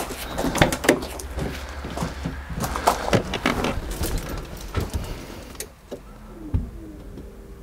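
Peugeot 205 CTI's starter motor cranking the engine sluggishly without it catching, then stopping about five and a half seconds in: the battery is too flat to start the car. A single thump follows near the end.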